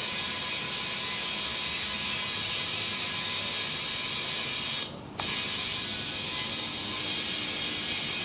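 Steady hiss of water being sprayed onto a freshly plugged tire to check the plug for leaks. It stops briefly about five seconds in and starts again with a click.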